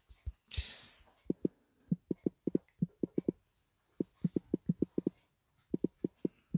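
Fingertip taps on a smartphone touchscreen while typing on the on-screen keyboard: a couple dozen quick, soft taps in irregular runs, with short pauses between words. A brief hiss comes about half a second in.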